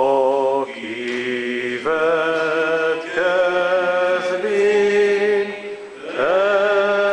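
Congregation singing a hymn slowly, each note held for a second or more, with a short break for breath about six seconds in.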